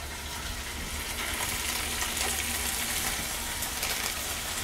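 Prosciutto-wrapped lamb chops frying in hot olive oil in a skillet: a steady sizzle with fine crackling as the meat starts to sear.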